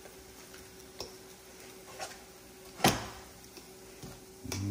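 A cooking utensil tapping and knocking against a frying pan as chicken pieces are chopped up in it: light taps about once a second, with one sharp clack about three seconds in.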